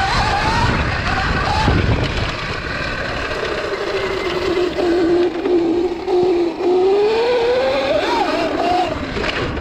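72-volt Sur-Ron electric dirt bike with a chain drive, ridden on a dirt track. Its motor whine rises and falls with the throttle, dipping low in the middle and climbing again near the end, over chain and rushing noise.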